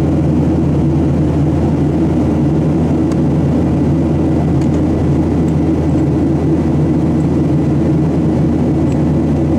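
Steady low drone of a Boeing 737-700's CFM56-7B turbofan engines and rushing air, heard from inside the cabin beside the wing in flight.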